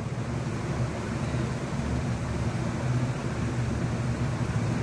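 Hot oil sizzling steadily around a banana ball deep-frying in a kadai, over a steady low hum.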